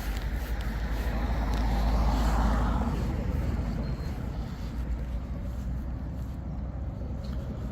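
A vehicle passing close by: its noise rises to a peak about two seconds in and fades away, over a steady low rumble.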